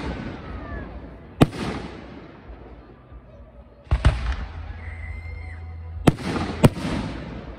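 Aerial firework shells bursting overhead: four sharp bangs, the last two about half a second apart, each followed by a fading rumbling echo.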